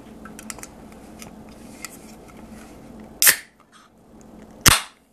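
Aluminium drink can of sparkling water being opened. Fingernails tick and pick at the pull tab, then two sharp cracks about a second and a half apart as the tab breaks the seal.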